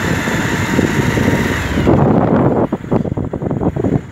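Wind buffeting the microphone of a moving motorcycle, over the motorcycle's running engine. The high hiss cuts off suddenly about two seconds in, leaving low, gusty buffeting.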